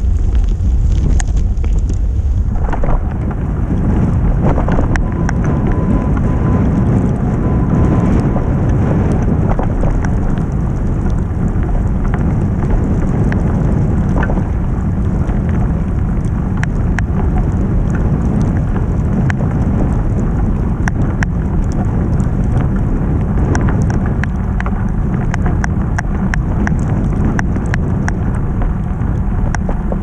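Snowstorm wind buffeting a bicycle-mounted camera's microphone as it rides: a loud, steady rumble with scattered sharp ticks and clicks throughout.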